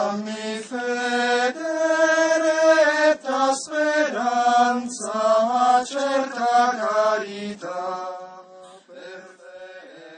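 A slow sung chant in Italian: a voice holds long notes, stepping from pitch to pitch, and fades out near the end.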